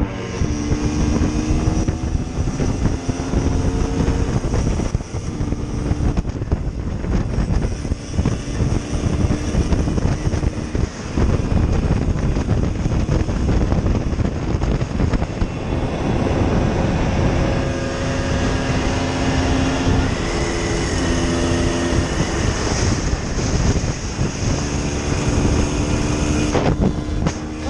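MZ ES 125 single-cylinder two-stroke engine running under way, its pitch shifting up and down as the bike speeds up and eases off. Heavy wind rumble on the microphone underlies it.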